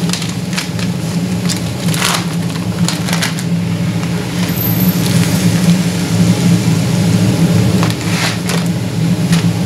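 A steady low mechanical hum from the kitchen, with irregular short rustles of a paper bag as dry millet is shaken out of it for measuring. The longest rustles come about two seconds in and again near the end.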